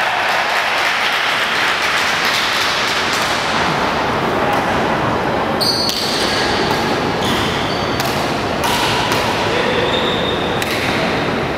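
Steady, echoing hubbub of a large sports hall with a murmur of voices, broken from about six seconds in by several sharp knocks and short squeaks from the badminton players' rackets and shoes on the wooden court.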